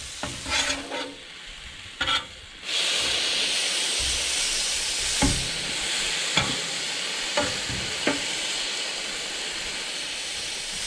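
Steak strips sizzling on a Blackstone flat-top griddle, with a metal spatula scraping and tapping on the steel a few times as the meat is turned. The sizzle grows suddenly louder about three seconds in.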